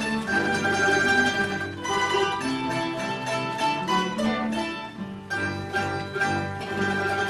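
A mandolin and guitar ensemble playing a melody in long held notes over a lower accompaniment.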